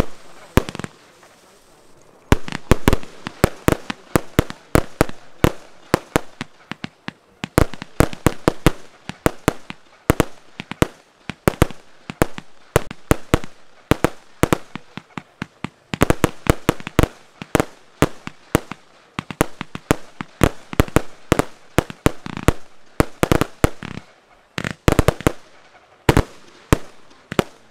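Aerial fireworks of a professional display going off in rapid volleys: dozens of sharp bangs and pops in quick succession, with a brief lull near the start.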